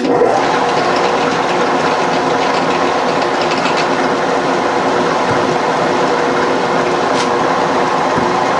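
Knee milling machine's spindle running steadily in back gear (low range) for power tapping a 3/8-16 thread, a gear whine with several held tones. A single sharp click about seven seconds in.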